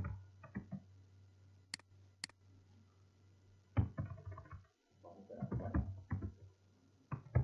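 Two sharp mouse clicks about two seconds in, then runs of keyboard keystrokes in quick bursts, over a steady low hum.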